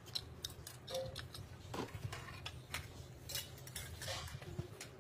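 Scattered light clinks and taps of stainless steel plates being handled and set down, a few of them ringing briefly.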